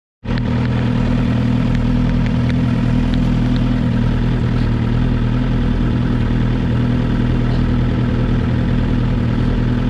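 Motorcycle engine idling steadily. It starts just after the opening moment and holds an even, unchanging beat.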